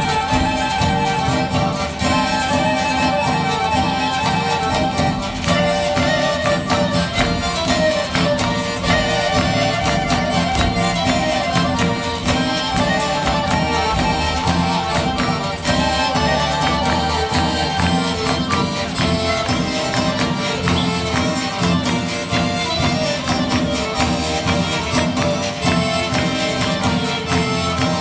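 Albanian folk dance music: a melody line over a fast, steady beat.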